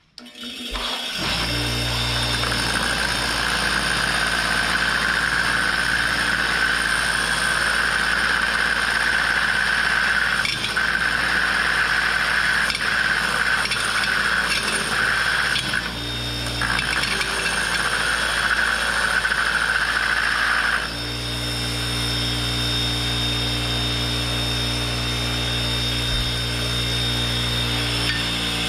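Bench grinder started up about half a second in, its motor running with a steady hum. A carbide-tipped stump-grinder tooth is pressed against its green silicon-carbide wheel, giving a steady grinding hiss with two brief breaks. The grinding stops near the end while the wheel keeps spinning.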